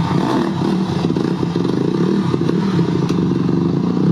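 Honda CRF150R dirt bike's single-cylinder four-stroke engine running, its pitch rising and falling with the throttle as the bike is ridden.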